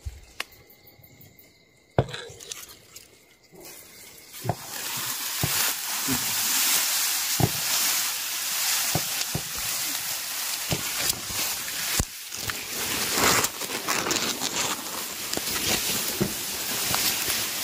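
Tall dry grass rustling loudly against the camera as it is pushed through, with many sharp snaps of stems. It begins about four seconds in, after a quieter stretch with a few clicks and a steady high insect trill.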